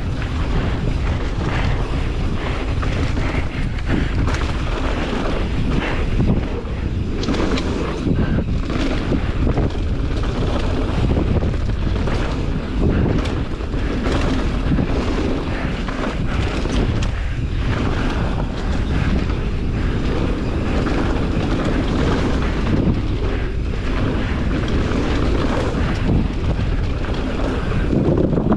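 Wind rushing over the microphone on a fast mountain-bike descent, with the rumble of tyres on a dirt trail and frequent knocks and rattles from bumps. The noise jumps up sharply right at the start.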